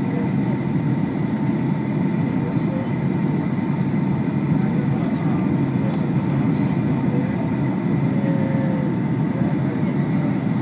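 Steady cabin roar of a Boeing 757 on approach, heard from a window seat over the wing: engine and airflow noise with a faint, even whine on top.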